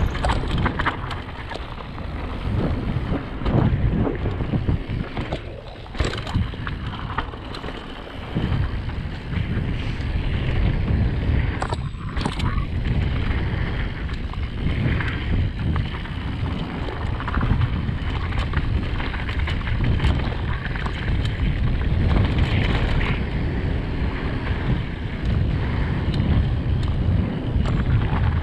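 Wind rushing and buffeting over the microphone on a fast mountain-bike descent, mixed with irregular clattering and knocks from the Radon Swoop 8.0 AL enduro bike as it rides over rough trail. The level dips for a few seconds early on, then stays steady.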